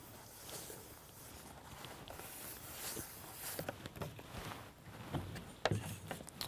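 Faint rustling and brushing of hands over paper and card on a tabletop, with a few soft knocks near the end.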